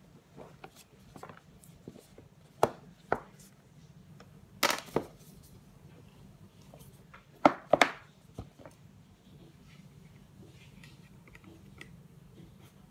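A small cardboard watch box handled on a tabletop: a few sharp taps and knocks, the loudest about five and eight seconds in, over a faint steady low hum.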